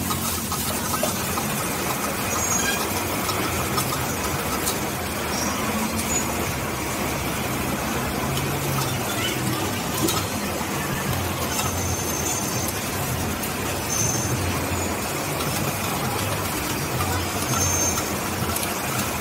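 Road traffic passing with engine rumble that swells and fades, and a few brief high squeals like brakes, over a steady hiss of eggs frying in a pan with metal spatula scrapes and clicks.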